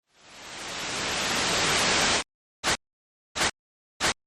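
Static hiss that swells up over about two seconds and cuts off abruptly, followed by three short bursts of static separated by dead silence.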